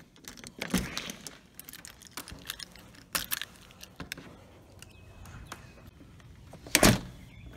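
Keys on a lanyard jangling and clicking with handling noise as a house door is unlatched and opened, with one loud thump about seven seconds in.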